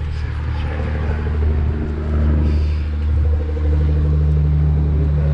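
A vehicle engine idling steadily close by, with a low even hum that gets a little louder about two seconds in and again near four seconds.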